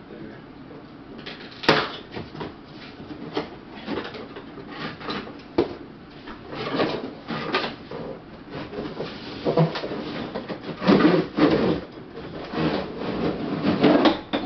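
Cardboard box being opened and its packed parts handled: irregular knocks, scrapes and rustles, with a sharp click about two seconds in and busier handling in the second half.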